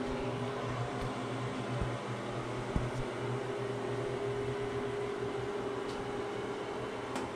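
Steady hum of a ventilation fan, with a faint tap about three seconds in.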